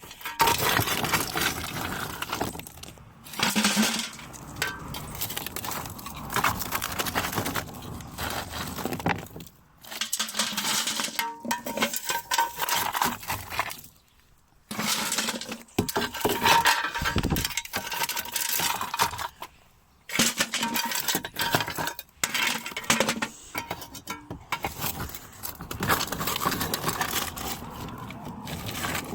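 Clinking and clattering of hard objects such as glass or metal, in several separate stretches broken by short pauses.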